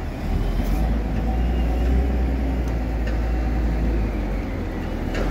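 Caterpillar wheel loader's diesel engine running steadily, a deep rumble that eases briefly near the end and picks up again.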